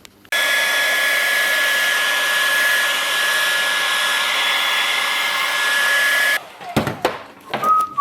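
A hand-held electric blower runs steadily for about six seconds: a loud hiss of rushing air over a steady high whine, switched on and off sharply.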